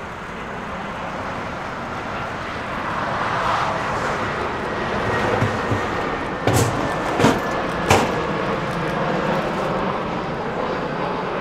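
Jet airliner engines passing, an even rumbling roar that swells toward the middle. Three sharp knocks come in quick succession just past the middle.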